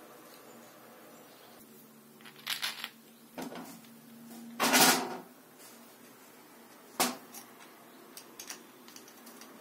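White 3D-printed plastic parts and screws handled on a metal workbench. A few brief clattering knocks come first, the loudest about halfway through, then a single sharp click a couple of seconds later and a few light ticks.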